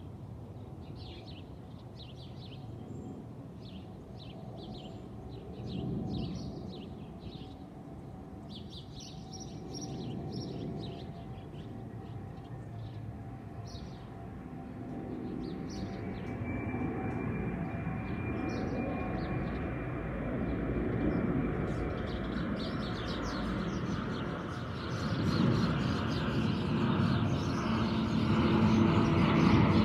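Small birds chirping in short repeated notes over a steady background rumble. From about halfway through, the engine noise of an airplane passing overhead builds and grows steadily louder toward the end.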